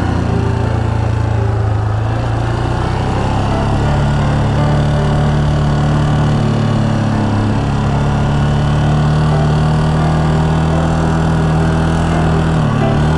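Yamaha Serow 250's air-cooled single-cylinder four-stroke engine running as the bike rides along, its pitch stepping up about four seconds in, with short dips in the middle and near the end as the throttle changes.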